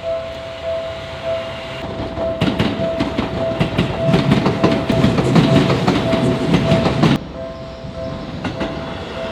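Japanese level-crossing warning bell ringing in a steady repeating ding-ding pattern. A Seibu electric train clatters over the crossing from about two seconds in, its wheels clicking over the rail joints. The train noise cuts off sharply about seven seconds in while the bell keeps ringing.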